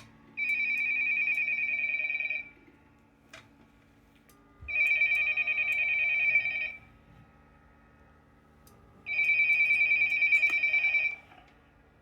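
Incoming call ringing on the Macintosh Performa's line of a home-made PBX. It is an electronic trilling ring in three bursts of about two seconds each, roughly four seconds apart.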